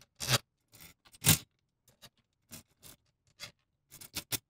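Long fan screws being started by hand through plastic fan frames into a radiator: a series of short scrapes and clicks of screw and plastic against metal, the loudest a little over a second in.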